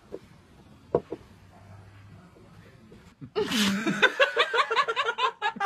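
A person bursts out laughing about three seconds in, a rapid run of short ha-ha-ha pulses.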